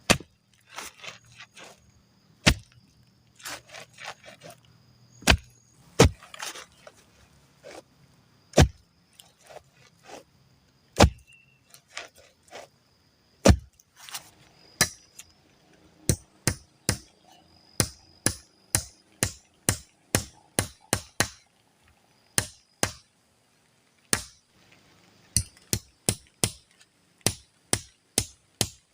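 Sharp tool strikes on wood, like chopping. They come singly a couple of seconds apart at first, then from about halfway in a quicker, regular run of about two a second. A faint, steady high whine sounds under them.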